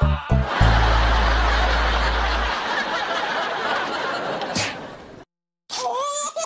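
Edited comedy sound effects: a deep boom with a rushing noise that fades away over a few seconds, then a quick whoosh. After a short moment of silence a bouncy cartoon-style jingle begins near the end.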